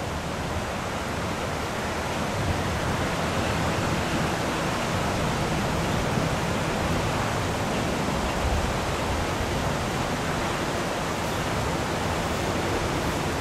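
Flowing floodwater making a steady rushing noise.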